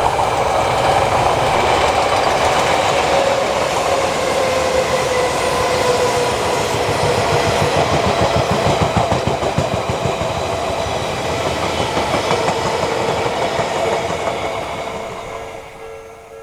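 Odakyu Odawara Line electric train passing a level crossing at speed, with rhythmic wheel clatter over the rails around the middle. The crossing's warning bell rings steadily throughout, and the train's sound fades away over the last couple of seconds.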